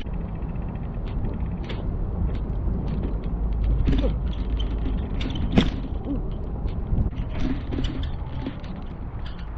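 Bicycle being ridden through snow, wind buffeting the camera microphone in a steady low rumble, with scattered clicks and rattles from the bike and one sharper knock about five and a half seconds in.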